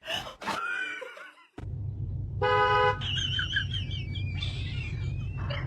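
A car horn toots once for about half a second over a steady low rumble like a vehicle running. High, wavering cries follow the toot.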